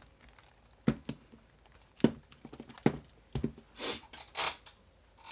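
Sharp metallic clicks and knocks from a just-picked Bell disc-detainer bicycle U-lock and its pick being handled, several single clicks a second or so apart. Near the end come two short rushing, hiss-like sounds.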